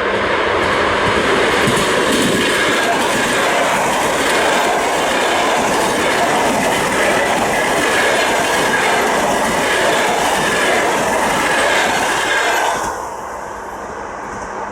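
ED4M electric multiple unit passing at speed, a loud steady rush of wheel and rail noise that cuts off suddenly about 13 seconds in as the last car goes by.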